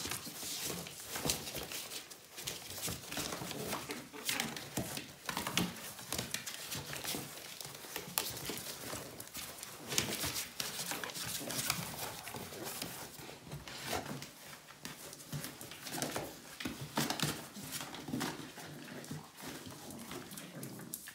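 Puppies play-fighting in and around a cardboard box: cardboard crackling and scraping as they tear at and tumble through it, paws scrabbling, with small puppy growls.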